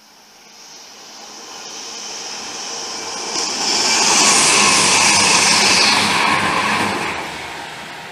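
East Midlands Trains Class 222 Meridian diesel multiple unit approaching and passing beneath at speed. A rush of engine and wheel noise builds steadily, is loudest for a couple of seconds in the middle with a strong high hiss, then eases and cuts off abruptly at the end.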